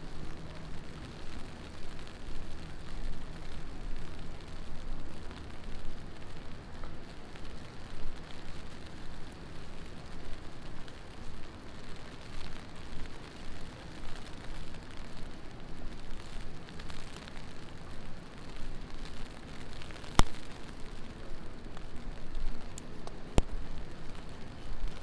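Heavy rain falling and pattering on surfaces, an uneven hiss that swells and dips. Two sharp knocks sound near the end.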